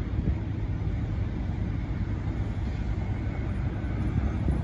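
Steady low rumble of road traffic and vehicle engines, with no sharp events.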